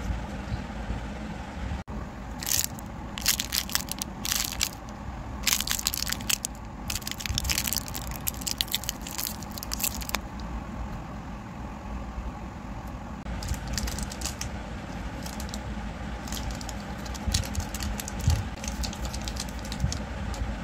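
Plastic candy wrappers crinkling and crackling in bursts as hands handle and unwrap small wrapped candies, over a steady low background hum.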